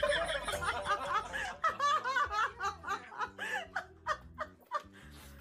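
Quick, repeated high-pitched laughter in short bursts, dying away near the end.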